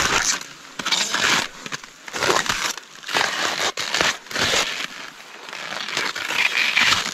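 Irregular rustling and crunching noises in uneven bursts, roughly one every half second to second.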